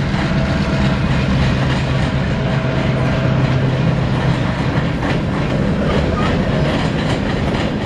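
Freight train rolling past: a steady rumble with a low drone and the clickety-clack of wheels over rail joints.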